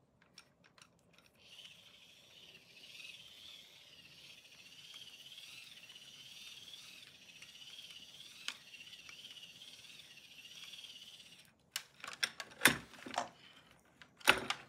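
Microwave oven turntable motor and its gear train whirring faintly as it is spun by hand to work as a generator, with a thin whine that wavers evenly up and down for about ten seconds. Near the end come a few sharp clicks and knocks as the parts are handled.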